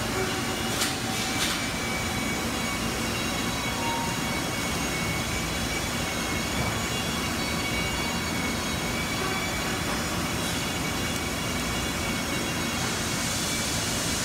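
Mori Seiki SV-503B/50 CNC vertical mill running under power: a steady machine hum with several steady high whining tones. Two sharp clicks come about a second in.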